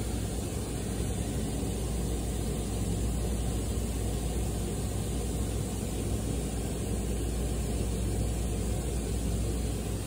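Steady low mechanical hum with a rumbling noise, unchanging throughout, with no bird calls.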